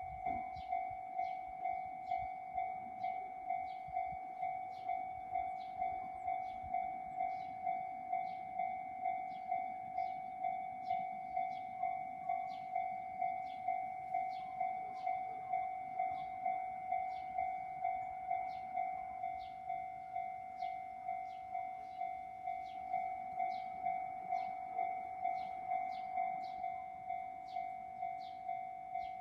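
Japanese level-crossing warning bell ringing steadily at about two strikes a second. A train runs through the crossing beneath it.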